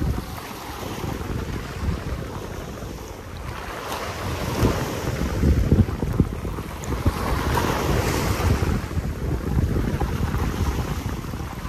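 Small waves washing and breaking over a rocky shoreline, with gusty wind buffeting the microphone; the surf swells louder around the middle.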